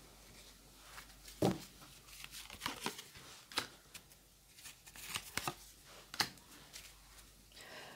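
Fortune-telling cards being picked up, slid and laid down on a table: a scatter of soft clicks, flicks and slaps. The loudest comes about one and a half seconds in, with clusters around three and around five seconds in.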